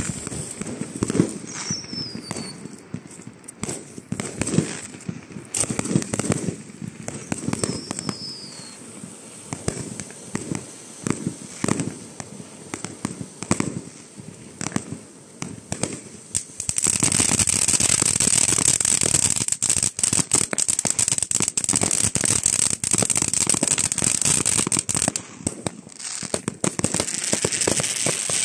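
Winda P3211 'Killer Fountain' firework fountain spraying sparks with steady crackling and popping. About two-thirds of the way in it turns into a much louder, continuous hissing spray with dense crackle.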